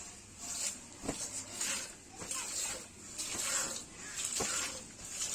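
Streams of milk squirting into a pail as a cow is milked by hand, a hissing spurt about twice a second in a steady rhythm.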